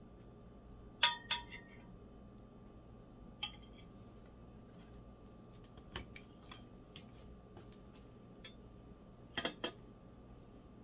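Metal clanks and clinks of a stainless steel pot and metal spoon being handled and set down on a metal worktop. A sharp ringing clank comes about a second in, another at about three and a half seconds, then light clicks, and a quick cluster of clanks near the end.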